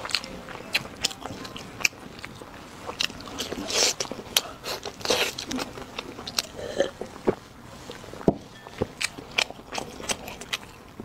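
Close-miked eating sounds: many sharp clicks, crunches and wet smacks of a person biting, tearing and chewing glazed spare rib meat.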